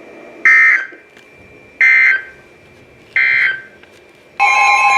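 Emergency Alert System end-of-message data code on weather radio: three short bursts of buzzy digital tones about 1.3 seconds apart, marking the end of a tornado warning. Just before the end, a loud steady alert tone starts for the next warning.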